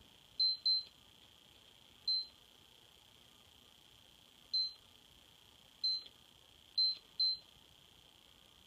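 Lowrance Elite 4x HDI fish finder giving short, high electronic key beeps as its buttons are pressed to step through the menus. There are seven beeps at uneven intervals, including two quick pairs: one about half a second in and one near the end.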